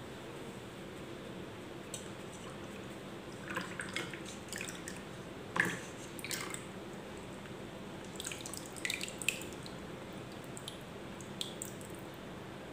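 Cooled sago-cooking water trickling and dripping through a steel mesh tea strainer into small plastic bowls: faint, scattered drips and small splashes, a few a little louder near the middle.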